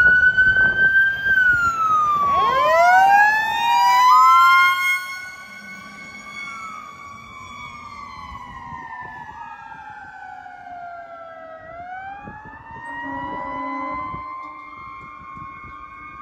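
Fire rescue truck's electronic siren wailing in slow rising and falling sweeps, with a burst of fast yelping sweeps about two to four seconds in. It is loud for the first few seconds, then fainter as the truck drives away.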